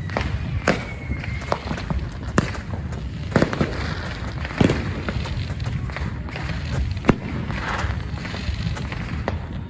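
Fireworks going off: a string of sharp bangs at irregular intervals over a continuous low rumble, with a thin whistle in the first second or so.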